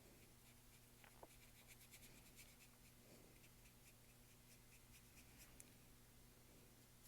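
Near silence with faint, quick scratchy strokes of a paintbrush on canvas, several a second, from about one second in until past five seconds, over a low steady room hum.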